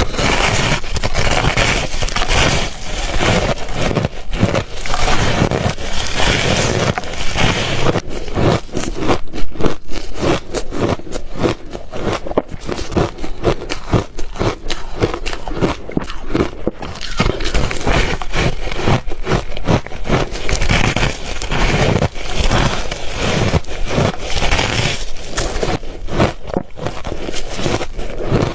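Ice being bitten and chewed close to the microphone: a dense, unbroken run of crunching and crackling.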